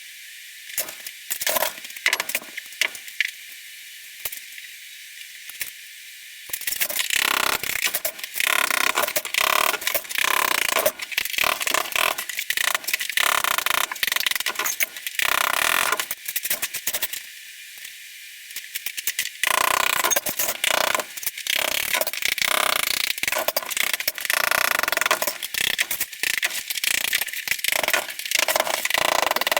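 Tile and cement backer board being broken out with hand tools: dense knocking, clattering and scraping of the tool and broken pieces. It starts with scattered clicks, turns into continuous clatter after about six seconds, and pauses briefly around two-thirds of the way through.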